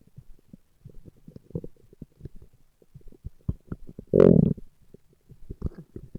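A man's stomach growling: a string of small, low gurgles and pops, with one loud, longer growl a little past the middle.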